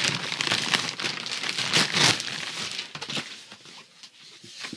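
Clear plastic packaging crinkling and rustling as it is handled, loudest in the first couple of seconds, then dying away to a few small clicks.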